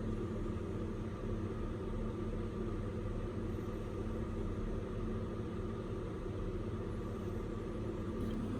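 Steady mechanical drone with a few held hum tones, even in level throughout, like a motor or engine running.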